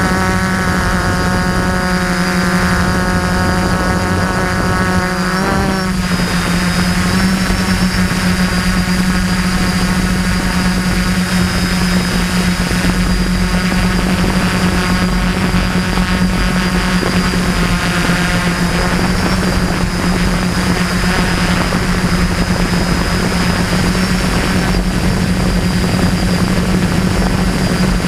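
DJI F450 Flame Wheel quadcopter in flight, its four electric motors and propellers making a loud, steady buzzing hum, heard up close from the camera on the airframe. The pitch wavers briefly about five to six seconds in as the motors change speed.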